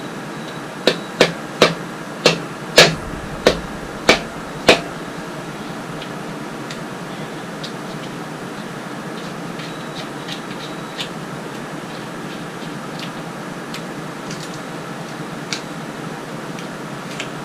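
Eight sharp knocks in quick succession, like hand tapping on metal engine parts, then a few faint clicks of tools being handled.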